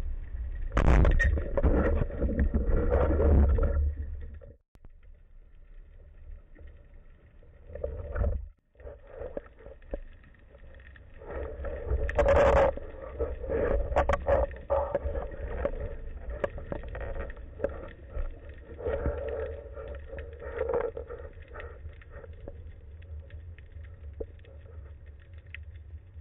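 Underwater sound picked up through a speargun-mounted camera's housing: muffled water noise with a low rumble and many small clicks and knocks, swelling twice, with two brief dropouts in the first third.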